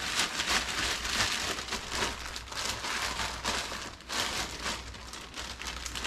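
Plastic zip-top bag crinkling as it is pressed and handled, with crushed corn flake breading rustling inside around the catfish fillets. The crackling is dense and continuous, then thins out about four seconds in.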